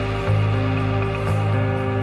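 Background instrumental music: soft, sustained notes with shifting chords.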